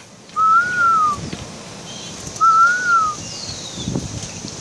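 Two clear whistled notes, each a slow rise and fall about a second long, about two seconds apart, with fainter, higher falling chirps between them.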